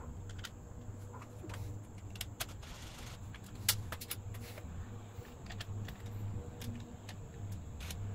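Scattered plastic clicks and light rattles as a motorcycle's right-hand switch housing and throttle grip are handled and fitted back onto the handlebar, with one sharper click about halfway through.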